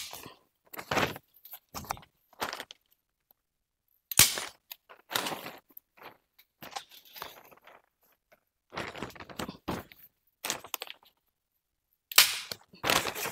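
Handheld staple gun firing staples through clear plastic sheeting into a bamboo frame: several sharp snaps a few seconds apart, with the plastic sheet crinkling in between.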